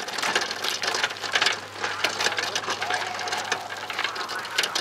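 Fast, irregular mechanical clatter over a steady low hum.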